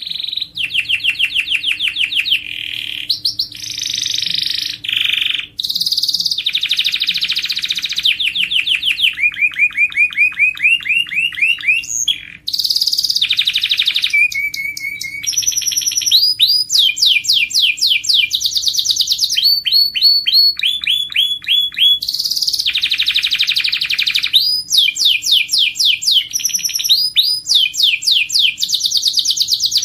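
Domestic canary singing a long, nearly unbroken song of rapid trills, each phrase a fast run of repeated notes, switching to a new phrase every second or two.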